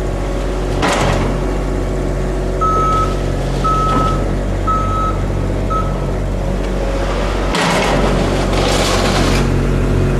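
Plow machine's engine running steadily while a reversing beeper sounds four times, about once a second, a few seconds in. Bursts of scraping hiss come about a second in and again near the end as the plow works over the pavement.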